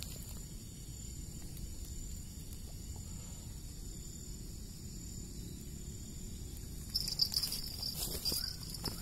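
Insects trilling steadily in a high, thin note over a low outdoor rumble. About seven seconds in, a second, louder insect buzz joins, with a few scattered clicks and rustles.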